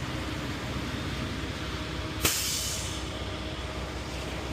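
Concrete mixer truck's diesel engine running with a steady low rumble. About two seconds in, a sudden sharp burst of air hisses from the truck's air brakes and fades within a second.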